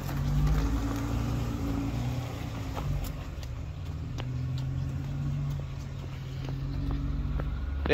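Modified Jeep's engine running at low revs while crawling a trail obstacle, its pitch rising and falling a little. A few faint clicks sound over it.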